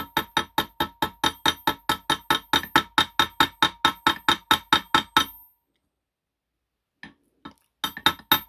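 Rapid metal-on-metal tapping, about six ringing taps a second, as a steel rod drives the flywheel key into its keyway on a motorcycle crankshaft. The tapping stops about five seconds in, two light taps follow, and it starts again near the end.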